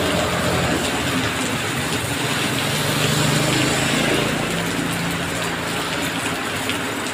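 Heavy rain hissing steadily on a wet road, with a passing motor vehicle's engine hum swelling and fading around the middle.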